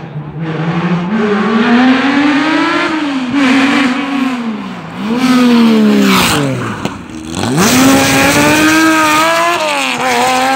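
Rally car's engine accelerating hard, its pitch climbing and then dropping sharply at each upshift as it approaches. It passes close by about six seconds in with a steep fall in pitch, then pulls away, revving up through the gears again.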